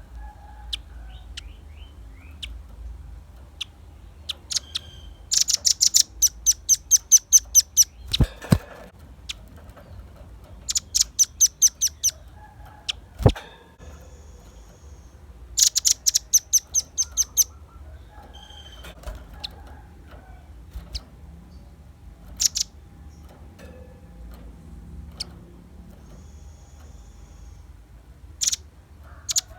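Velvet-fronted nuthatch calling in rapid trills of sharp, high, evenly spaced notes, about seven a second, in three bursts of two to three seconds, with scattered single chips between them. Two sharp knocks stand out, one about eight seconds in and a louder one about thirteen seconds in.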